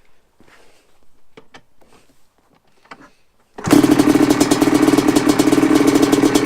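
Single-cylinder two-stroke engine of a 1985 Yamaha Tri-Z 250 three-wheeler. After a few faint knocks, it comes in abruptly about three and a half seconds in and runs loud and steady at a fast idle.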